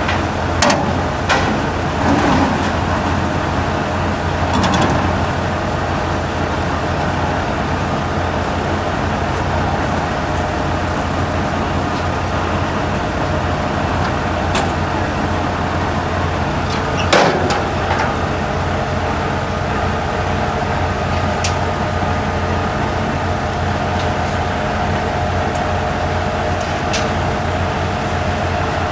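Army truck's engine running steadily, with a few sharp knocks over it, the loudest about 17 seconds in.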